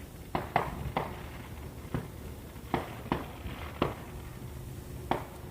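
Fireworks going off: about eight sharp pops and bangs in an irregular run, each with a short ringing tail, over a low steady hum.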